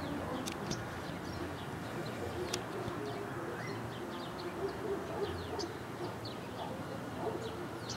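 Outdoor ambience with birds chirping: many short, high, falling chirps scattered throughout, over a steady low background din.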